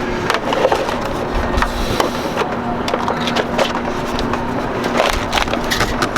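Irregular knocks and clunks against wood as a heavy 16,000 BTU marine air-conditioning unit is handled and lowered into a tight wooden compartment, with a faint steady hum underneath.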